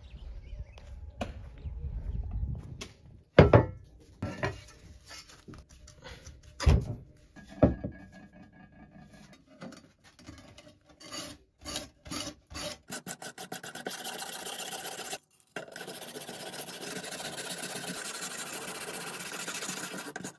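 A few loud knocks in the first half. Then rust and old red paint are scraped off the steel blade of a sapper shovel with a hand tool: separate strokes at first, then fast continuous back-and-forth scraping.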